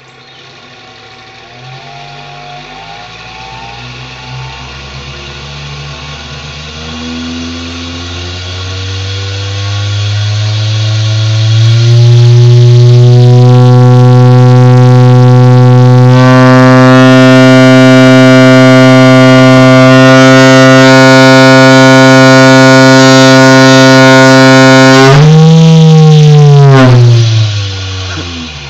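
Fog horn running from mains power, sounding one long, low, steady blast. It swells in loudness and rises slightly in pitch over about twelve seconds, holds loud for about thirteen, then wavers in pitch and dies away near the end.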